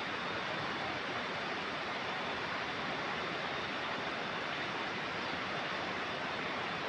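Steady rushing of river water, an even noise that doesn't change.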